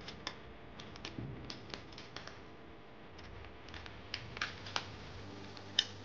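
Faint, irregular small clicks and ticks of a screwdriver working the screw terminals of a plastic three-gang wall switch as the live-wire loop is tightened, with a sharper click near the end.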